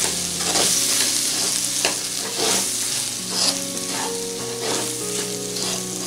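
Onion-tomato masala with freshly added spice powders sizzling in an oiled pan while a wooden spatula stirs it, each stroke a short scrape against the pan.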